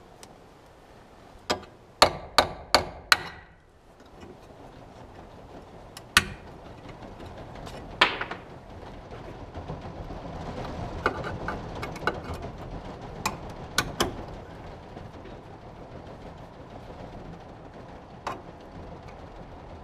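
Hammer strikes: a quick run of five sharp blows about two seconds in, then single knocks every few seconds.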